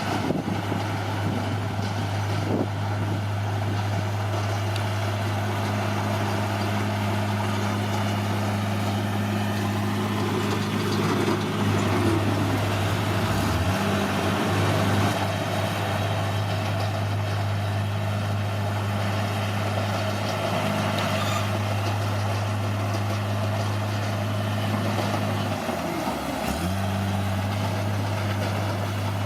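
Bulldozer's diesel engine running steadily, its pitch dipping briefly about 13 seconds in and again near 26 seconds before coming back up.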